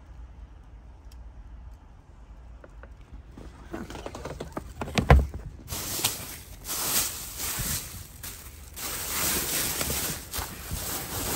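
Plastic bags crinkling and rustling as they are handled and pulled about, with a thump about five seconds in. The first few seconds hold only a low steady rumble.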